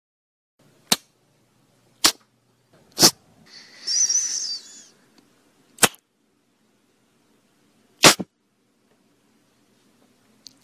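A series of loud, sharp cracks at uneven intervals, about one every one to two seconds, with a wavering high-pitched squeal lasting about a second and a half between the third and fourth.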